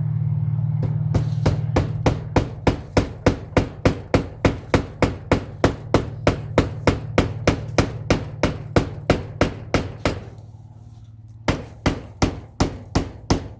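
Hammer driving a nail with quick, even blows, about three or four a second; the hammering stops for a moment about ten seconds in, then starts again. A steady low hum underneath fades out near the end.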